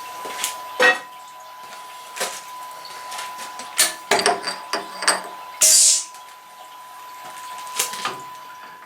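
Workshop machining sounds: scattered metal clicks and knocks over a steady high whine, with one short loud hiss a little past the middle.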